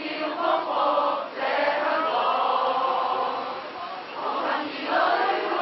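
A crowd singing together in unison: long held sung phrases with brief breaks between them.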